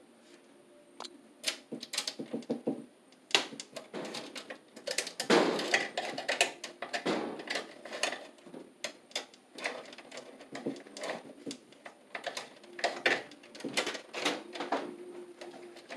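Irregular clicks, taps and scraping as the wires of a Romex electrical cable are handled and worked into a metal breaker panel, with the loudest cluster of knocks about five to six seconds in.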